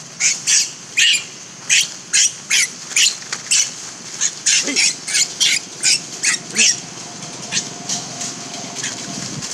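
Infant macaque screaming in a rapid run of short, high-pitched shrieks, about two or three a second. The shrieks thin out to a few fainter calls near the end.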